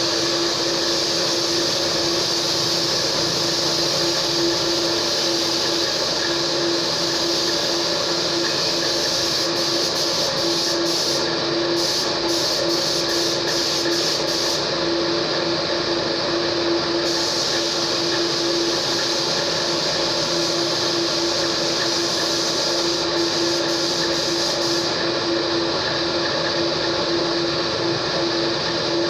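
A machine running steadily and without change, a constant hum with a steady hiss on top.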